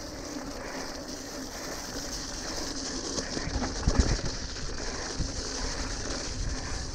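Mountain bike ridden down a wet, muddy dirt trail, heard from a handlebar-mounted camera: steady rushing and rattling of tyres and bike over the rough ground, with a couple of hard knocks from bumps about four seconds in.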